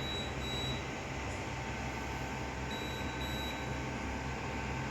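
Refrigerator door-open alarm beeping: two short high beeps, then two more about two and a half seconds later, the sign the freezer has been left open too long. A low steady hum underneath.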